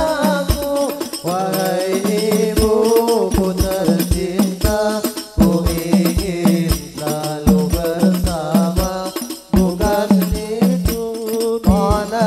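Men chanting a devotional Islamic munajah together through microphones, with rebana frame drums struck in a quick rhythm underneath.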